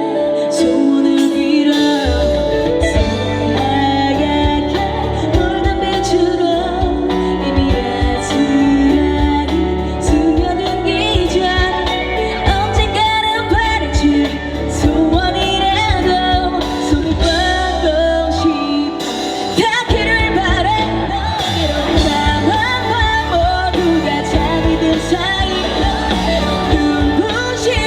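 A female singer performing a pop-rock ballad live with a band. Bass and drums come in about two seconds in and drop out briefly about two-thirds of the way through.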